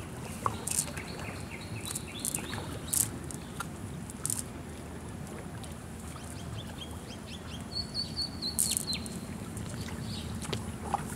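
Small birds chirping in short runs of high notes over a steady low outdoor rumble, with scattered sharp rustles and ticks from a nylon cast net and grass being handled and walked through.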